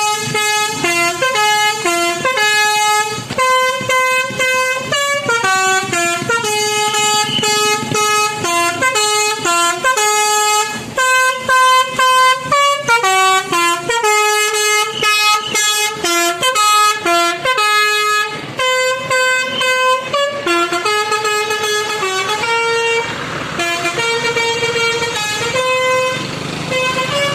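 Telolet multi-tone air horn playing a tune: loud honked notes in quick runs that step up and down in pitch, with short breaks between phrases. It gets softer in the last several seconds.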